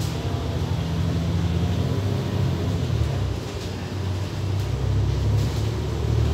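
Alexander Dennis Enviro500 double-decker bus under way, heard from inside the upper deck: a steady low engine and drivetrain hum that eases off a little partway through and then picks up again.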